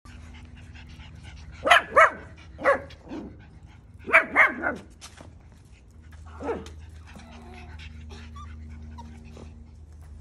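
Miniature Schnauzer puppies barking: short, high-pitched yapping barks in two quick bursts of three or four, then a single bark about halfway through.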